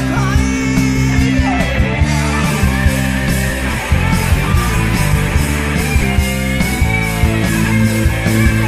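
Heavy metal band playing in a rough studio demo recording: electric guitars over drums, with a steady cymbal beat from about two seconds in.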